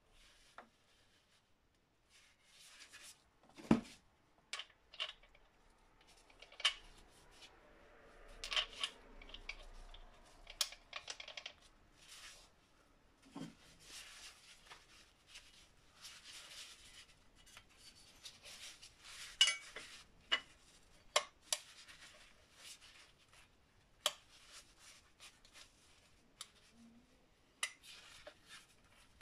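Handling sounds from a Metabo angle grinder that is not running: sharp plastic and metal clicks, knocks and rubbing as its wheel guard is taken off the gear head and fitted back on. Single clicks come every second or so, with short stretches of scraping between them.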